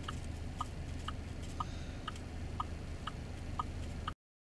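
A vehicle's turn-signal or hazard flasher ticking steadily: a higher click and a lower click take turns, about two ticks a second. A low steady hum of an idling engine runs underneath. All sound cuts off suddenly near the end.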